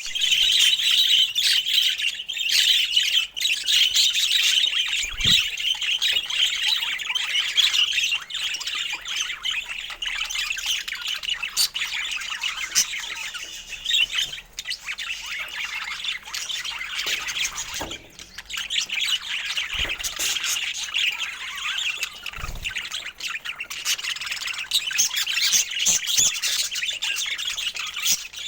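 Budgerigars chattering and chirping continuously in a dense warble of quick chirps and squawks.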